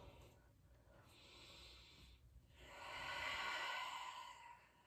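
A woman's slow, deep breathing close to the microphone: a faint short breath about a second in, then a longer, louder breath from about two and a half seconds in.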